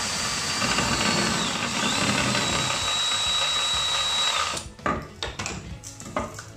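Cordless drill spinning the armature of a Hitachi wet-and-dry vacuum motor while sandpaper is held against the commutator to clean it. The steady whine dips briefly about a second and a half in, then holds. The drill stops about four and a half seconds in, followed by a few knocks of handling.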